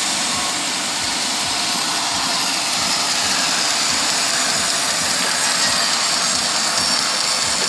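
Sawmill machinery running steadily: an engine's regular low pulse under a constant high hiss.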